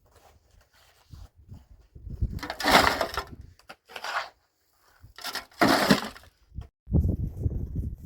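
Two loud, rough crunching crashes about three seconds apart, each under a second long, with low rumbling handling noise between and after.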